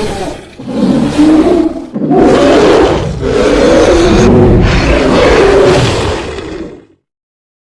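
Dinosaur roar sound effects: a roar of about a second, then a second roar, then a long one of over three seconds, each low and rough. The sound cuts off to dead silence near the end.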